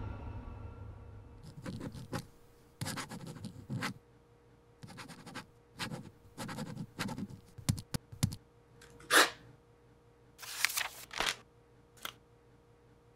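Pen writing on a paper notepad: a run of short scratching strokes, then a few louder, sharper scrapes near the end. A fading ring from the title sound dies away at the start.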